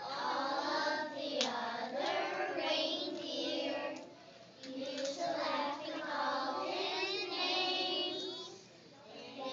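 A group of young children singing a song together in unison, with short pauses between phrases about four seconds in and near the end.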